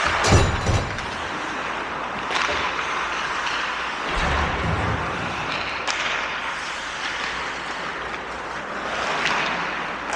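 Game play in an arena rink: a loud clatter of several hits right at the start, then a steady wash of play noise with a few single sharp knocks and a low thud about four seconds in.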